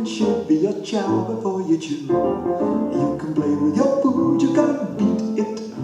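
Piano music with singing.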